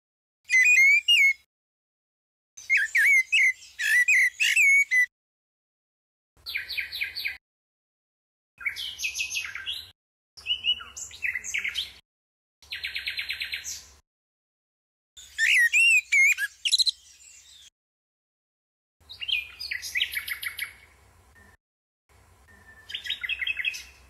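Short, edited phrases of bird song, one after another with silent gaps between them, like an exchange. Fluting, sliding whistles of a common blackbird alternate with the fast repeated-note trills of a common nightingale.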